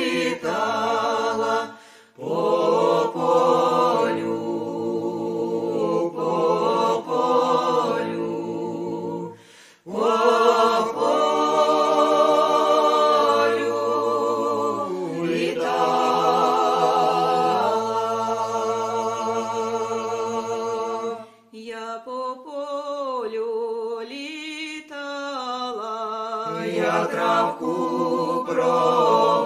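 A group of voices sings an unaccompanied folk song in long, wavering held phrases, with short breaks between phrases about two, nine and twenty-one seconds in.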